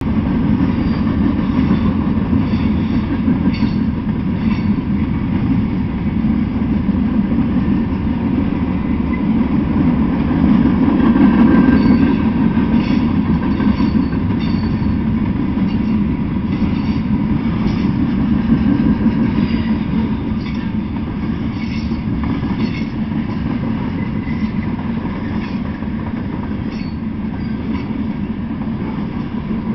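Freight train cars rolling past: a steady rumble of steel wheels on rail with repeated clicks as the wheels cross rail joints, a little louder around the middle and easing slightly near the end.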